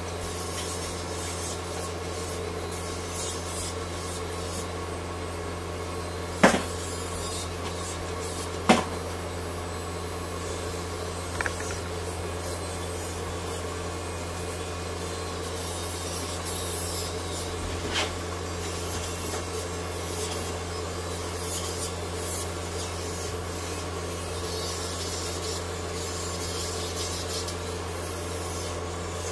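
Electric dog grooming clippers running with a steady hum while cutting through a Yorkipoo's coat, with a rasping edge and a few sharp clicks.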